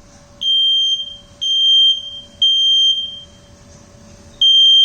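Nest smoke detector sounding its alarm: three loud, high-pitched beeps about a second apart, a pause, then the next round of beeps starting near the end, the three-beep fire-alarm pattern. It has been set off by smoke from sausages cooking in an air fryer.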